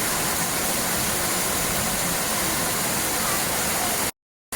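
Steady rushing water, a constant wash of noise like a waterfall or fast stream, cut off to dead silence for about half a second near the end.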